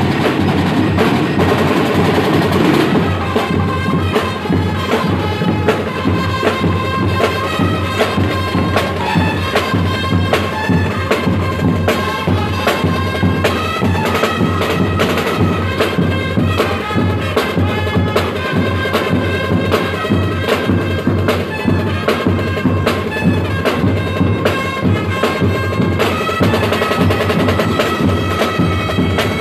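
Drum line playing live: bass drums and slung drums beat a fast, steady rhythm, with a melody of short, bell-like ringing notes over it.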